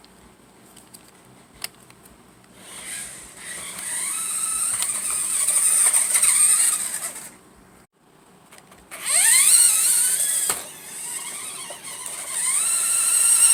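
Small electric motor and gears of a toy remote-control car whining in two runs, the pitch rising each time as the car speeds up, the second run louder.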